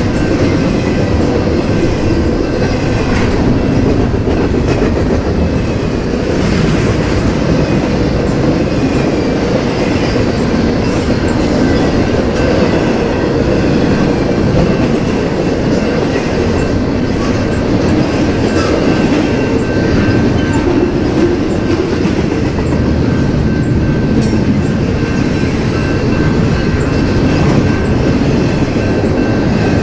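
Double-stack intermodal freight train rolling past, its well cars' wheels rumbling and clicking on the rails in a loud, steady noise.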